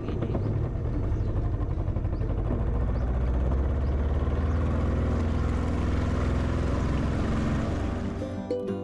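Small boat's outboard motor running steadily under way, with water and wind rush; its pitch climbs a little in the middle. Guitar music comes in near the end.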